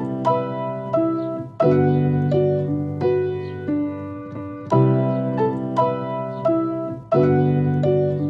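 Background piano music: soft sustained chords with a melody of struck notes, the chords changing every second or so.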